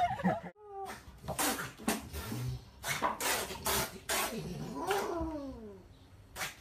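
A kitten vocalising at a dog: several short breathy bursts, then one falling meow about five seconds in.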